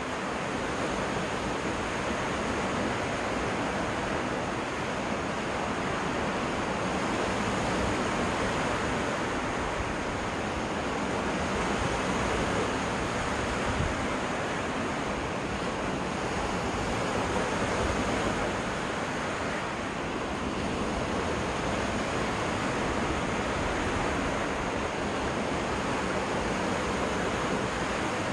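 Lake surf washing onto a freshwater beach: a steady wash of waves that swells and eases gently.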